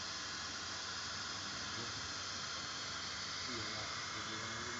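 Cigarette packing machinery running: a steady, even hiss of machine noise. Faint voices are heard under it near the end.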